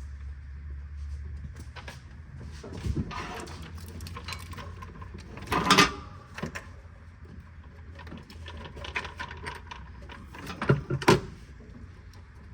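Knocks and clatters of parts being handled in a garage, over a steady low hum. The loudest knock comes about halfway through, and two more come close together near the end.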